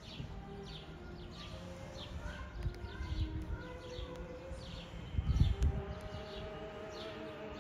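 Small birds chirping over and over in short, quick downward notes, with a few longer whistled notes below them. Gusts of wind buffet the microphone twice, the stronger one about five seconds in.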